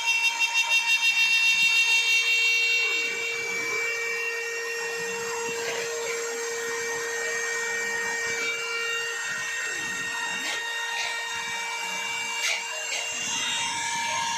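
CNC router spindle whining steadily at a high pitch as it cuts acrylic sheet. For the first three seconds the sound pulses rapidly, then it settles, with a short click about twelve and a half seconds in.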